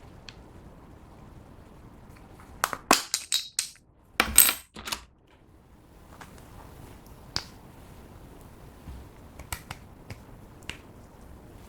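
Sharp clinks and clicks of small hard objects being handled. A quick cluster comes about three seconds in, then a louder crunch just after four seconds, then a few scattered soft ticks.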